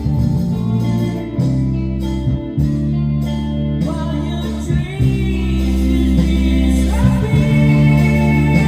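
Music with guitar, a bass line and a singing voice.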